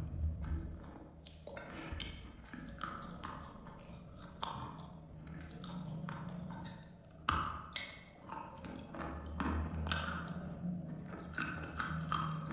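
Chewing a mouthful of dry, powdery chalk with cream on top: irregular crisp crunches and clicks as it is bitten and ground between the teeth.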